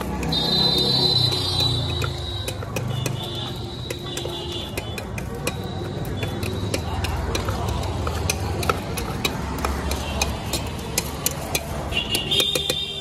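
A metal spoon clinks and scrapes against a small stainless steel pot in quick, irregular taps as sliced starfruit is tossed with spices, over a steady low rumble of street traffic. A high steady tone sounds briefly at the start and again near the end.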